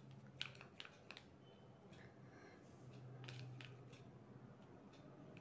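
Near silence: room tone with a few faint, scattered clicks, the sharpest about half a second in, over a faint low hum.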